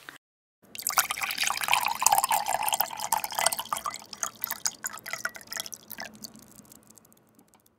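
Sound effect laid over the end card: a dense run of quick clicks and crackles that starts about a second in and fades away over several seconds.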